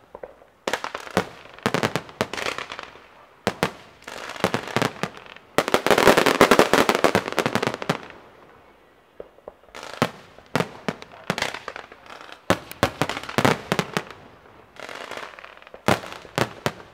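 Aerial fireworks bursting in quick clusters of sharp bangs, with a dense stretch of crackling from about six to eight seconds in.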